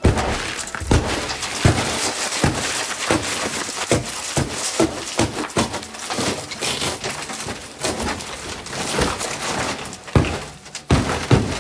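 Old wooden wall boards being pried and broken off with a pry bar: repeated knocks of the bar against the wood, with dense cracking and splintering as the boards bend and tear away.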